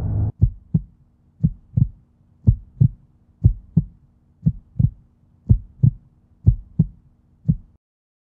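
Heartbeat sound effect: paired low thumps in a lub-dub rhythm, about one beat a second, over a faint steady hum. It cuts off suddenly near the end.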